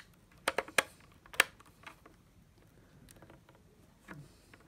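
Sharp clicks and taps of a screwdriver working a terminal screw on the plastic case of a model-train power pack. There are four loud ones in the first second and a half, the last the loudest, then a few fainter taps.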